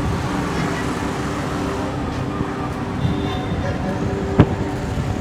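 Street traffic noise with a steady engine hum running underneath, and one sharp click or knock about four seconds in.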